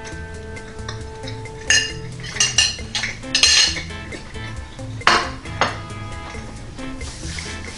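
A metal fork and a white plate clinking and clattering as the plate is handled and set down on a kitchen counter: a handful of sharp clinks between about two and six seconds in, over steady background music.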